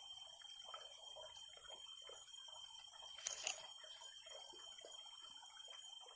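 Dry sticks handled and laid on a woodpile, faint rustling throughout, with a short clatter of wood knocking on wood a little over three seconds in. A faint steady high hum runs underneath.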